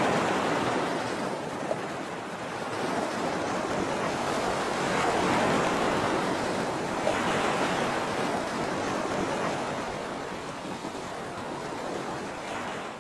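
Ocean surf sound: a steady rushing wash of waves that swells and eases a few times.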